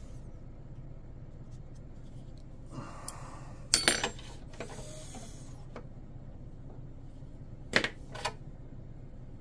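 Parts and tools being handled on a workbench while a stuffing tube is bent: a brief rubbing, then a few sharp knocks or clinks just before four seconds in, and two more about eight seconds in, over a steady low hum.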